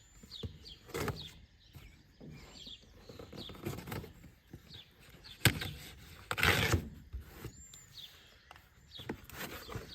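A package being handled and opened by hand: scattered clicks, knocks and scrapes, with a sharp snap about five and a half seconds in and a burst of rustling about a second later. Birds chirp in the background.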